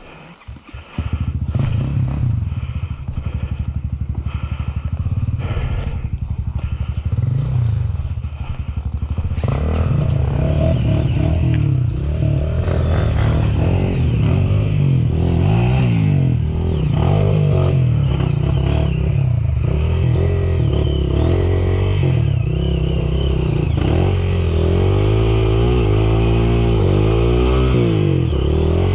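Dirt bike engine running, coming in abruptly about a second in. From about nine seconds on it revs up and down repeatedly, as it does when the bike is ridden along a trail.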